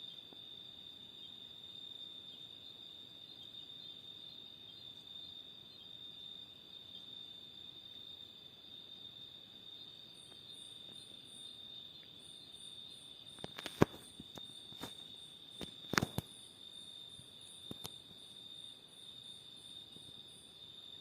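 Cicada in a mango tree buzzing in one steady, high-pitched drone, with a second insect's rapid, very high chirps joining about halfway through. A few sharp clicks and knocks come in the second half, the loudest about two-thirds of the way in.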